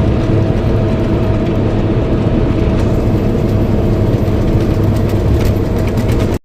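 John Deere combine's engine running steadily, a heavy low rumble with a constant higher whine over it; it cuts off abruptly near the end.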